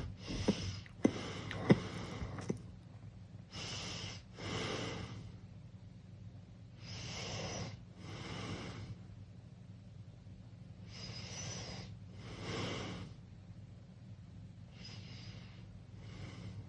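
Sleeping teenager snoring through a wide-open mouth: raspy breaths in and out, one pair about every four seconds. A few sharp clicks come in the first two seconds, the loudest nearly two seconds in.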